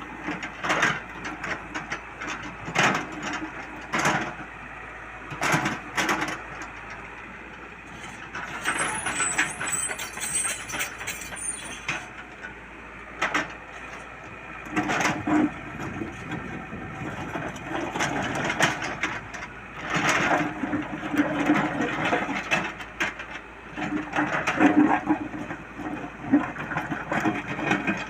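Komatsu excavator at work: its engine runs with a hum that rises and falls, and repeated sharp clanks and knocks come from the machine and its bucket.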